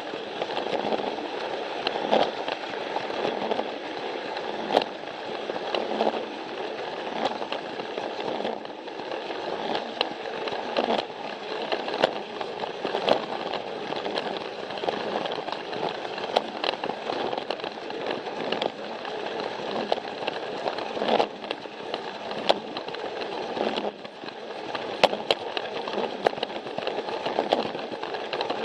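Battery-powered Plarail toy train running on plastic track: the steady whirr of its small motor and gears, with frequent sharp clicks and rattles from the wheels on the track.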